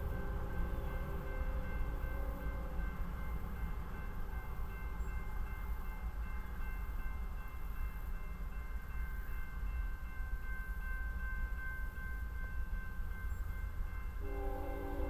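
Locomotive horn sounding a chord of several notes for the grade crossing: it sounds for about the first three seconds and starts again near the end. Between the blasts a crossing signal bell rings steadily over a low rumble.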